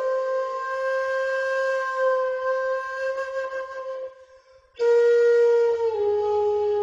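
Solo shakuhachi bamboo flute playing slow, breathy held notes: one long note fades away about four seconds in, a short pause follows, then a new note begins and steps down in pitch near the end.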